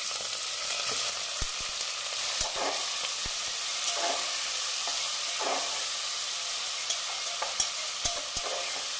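Chopped onions sizzling in hot mustard oil in an aluminium pressure cooker, stirred with a spatula. The spatula scrapes and clicks against the pot now and then.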